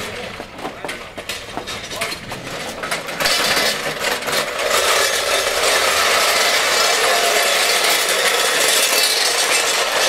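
Solid wooden wheels of a heavy danjiri festival float grinding and crunching over asphalt as it is pushed and steered by hand. Scattered knocks come first, and a steady loud grinding sets in about three seconds in.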